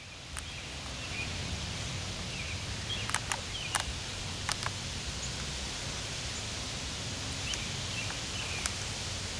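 Outdoor ambience: a steady hiss over a low rumble, with a few sharp clicks around three to five seconds in and again near the end, and faint short high chirps scattered throughout.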